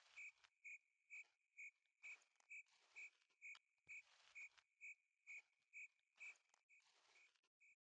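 Faint, regular high-pitched chirping, about two short chirps a second, from a calling insect or frog, with soft rustling of someone walking through leafy undergrowth.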